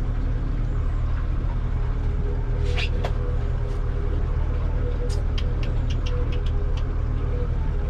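Boat engine running with a steady low drone and hum. A couple of sharp clicks come about three seconds in, and a quick run of about eight clicks follows a couple of seconds later.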